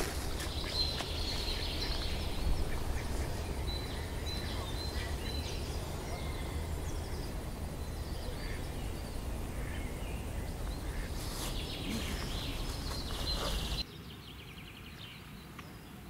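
Pond-side outdoor ambience: a low wind rumble with scattered small-bird chirps and occasional duck quacks. About fourteen seconds in, the rumble drops away suddenly, leaving a quieter background.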